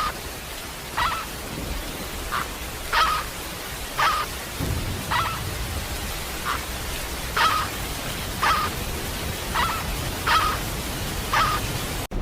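An animal giving short, pitched calls, about one a second, each call brief and alike, over a steady background hiss.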